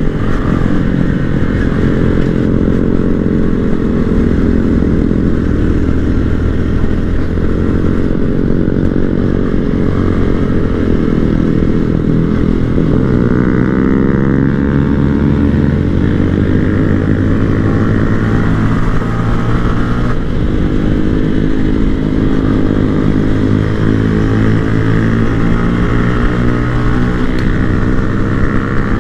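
Small-displacement motorcycle engine running at road speed, its pitch rising and falling a few times with throttle and gear changes.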